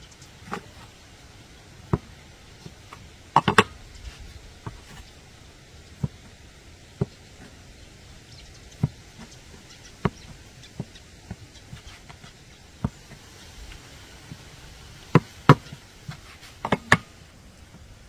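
Short sharp knocks of a knife blade striking a wooden board as it cuts through dough, about one a second, with quick clusters of knocks a few seconds in and again near the end.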